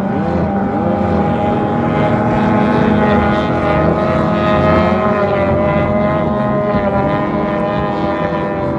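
Race boat engines running hard on the water during testing, a loud steady drone whose pitch climbs a little in the middle and eases off toward the end.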